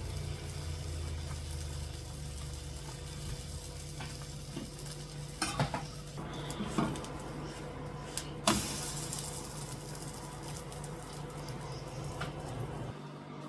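Cottage cheese pancakes sizzling in a frying pan, with a few sharp knocks of a utensil against the pan, the loudest about eight seconds in.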